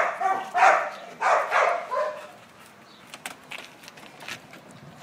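A dog barking three times in quick succession in the first two seconds, with pitched, drawn-out calls, then falling quiet. After that come a few light clicks and rattles from the wire door of a plastic dog crate being handled.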